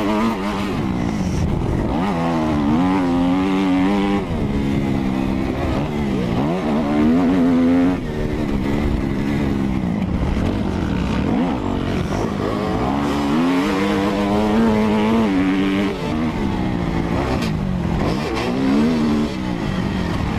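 Kawasaki KX250F four-stroke single-cylinder motocross engine ridden hard on a dirt track, heard from the rider's helmet. The revs climb and drop off again and again through gear shifts and corners.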